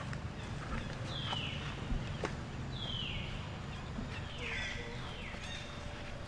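High animal calls, each about half a second long, dropping in pitch and then levelling off, heard four times with the last two close together. A few faint clicks and a steady low background rumble run underneath.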